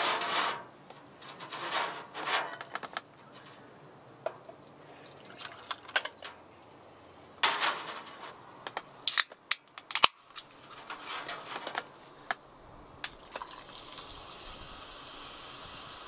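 Irregular clatter of handled cooking gear, short knocks and sharp clicks with a few brief rushes of noise, then a steady hiss that sets in about twelve seconds in and holds.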